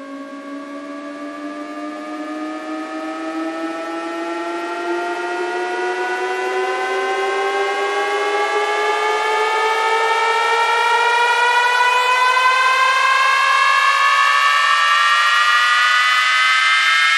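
Rising tone sweep from a DJ sound-check track: a buzzy, siren-like tone climbing slowly in pitch and growing steadily louder, with a second, faster-climbing tone joining about five seconds in.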